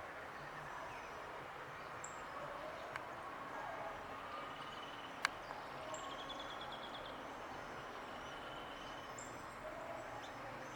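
Outdoor ambience with faint wild bird calls: a few short high chirps, brief whistled notes and a quick trill about six seconds in, plus a single sharp click a little after five seconds.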